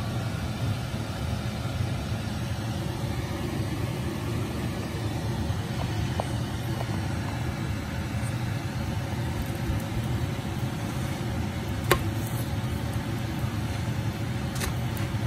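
A steady low rumble with a fainter hiss above it, and a sharp click about twelve seconds in.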